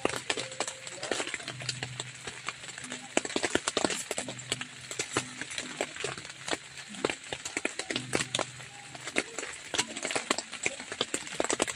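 A fork clinking and scraping against a metal camping pot as instant noodles are lifted out into a plastic bowl: a run of irregular light clicks and knocks.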